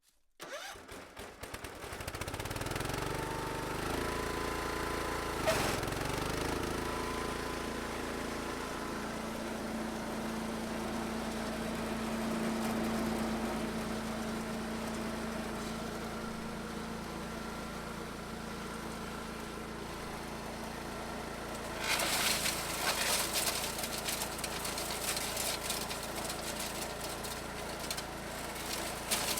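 An engine running steadily. About two-thirds of the way through, a rapid crackling rattle joins it.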